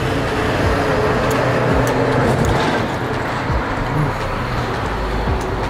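Road traffic: a motor vehicle driving past, a steady engine rumble with road noise.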